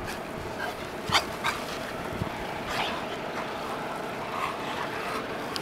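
A dog whimpering in a few short, high squeaks over a steady background rush.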